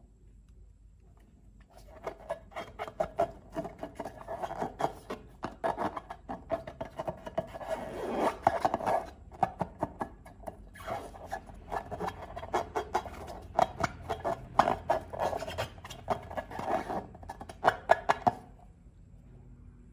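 Slime being squished and worked: a dense stream of sticky clicks and crackles that starts about two seconds in and stops near the end.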